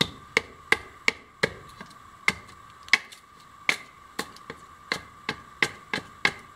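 Quick, sharp strikes of a hand tool chopping at a wooden axe-handle blank, about three a second, each with a short ring.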